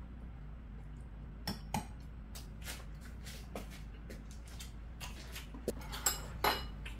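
Metal spoon and chopsticks clinking and scraping against ceramic bowls while eating: scattered sharp clinks starting about a second and a half in, coming more often and ringing a little near the end.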